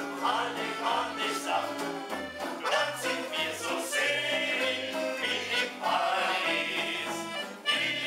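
Accordion ensemble playing a tune live, over a bass line that steps back and forth between low notes about every half second.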